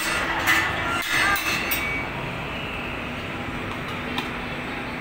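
Steady rumble of a swinging pendulum amusement ride running in a large indoor hall, with a few short louder sounds in the first two seconds and a single click about four seconds in.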